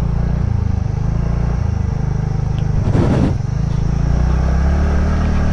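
TVS NTORQ scooter's small single-cylinder engine running under way over rough ground, its note stepping up and down as the throttle changes, with a brief louder disturbance about three seconds in.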